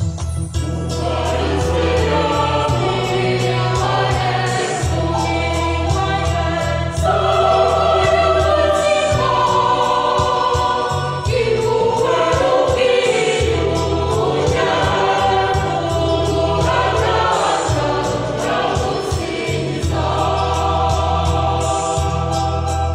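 Background music: a choir singing a gospel hymn over instrumental accompaniment with a steady bass line.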